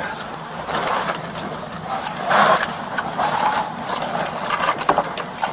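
Metal chain clinking and rattling in a quick run of sharp clicks as it is hacked at with garden shears, over a steady rushing background.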